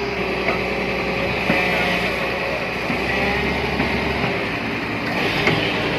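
Excavator's diesel engine running steadily under load as it digs, with a few short knocks from the bucket working against the earth and trolley.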